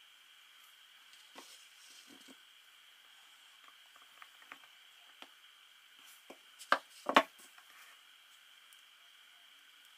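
Handling noise from a small AC gear motor's metal casing and plastic gears: scattered faint clicks and taps over a steady faint hiss, with two sharper knocks close together about two-thirds of the way through.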